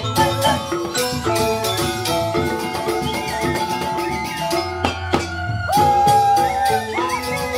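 Balinese joged bumbung gamelan playing: bamboo xylophones ringing out a quick interlocking melody over kendang drums. A long held note stands out about six seconds in.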